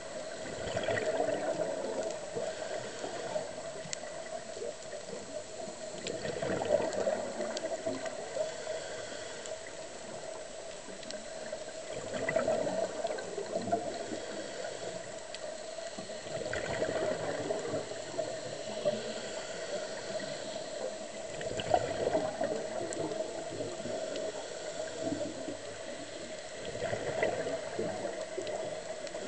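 Scuba diver's breathing heard underwater: bubbles rushing from the regulator on each exhale, in six swells about five seconds apart over a steady watery hiss.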